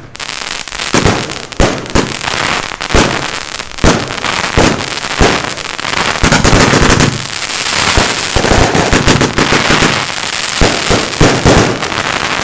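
Consumer firework batteries (F2/F3 cakes) firing: a steady run of sharp bangs, roughly one or two a second, with stretches of dense crackling in the middle and the second half.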